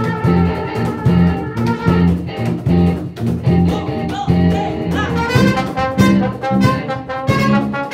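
Live band playing Colombian music: a repeating electric bass line with congas and drums, and trumpet and trombone that come in strongly about five seconds in.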